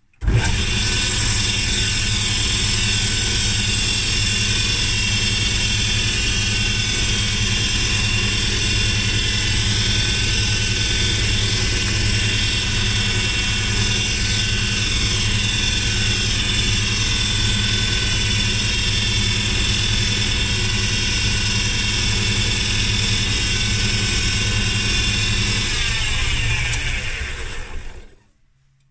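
Small wood lathe motor running steadily as it spins the pen blank for melamine lacquer finishing. It comes on suddenly at the start, then is switched off near the end and winds down to a stop.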